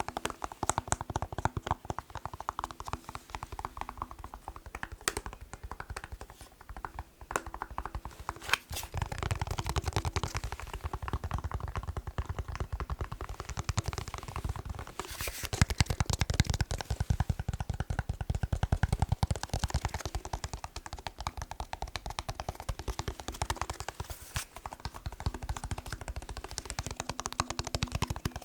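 Fast fingertip tapping and clicking on a plastic TV remote's casing and buttons, a dense rapid patter. From about nine seconds in, the tapping takes on a fuller, deeper knock for a stretch, then turns lighter again near the end.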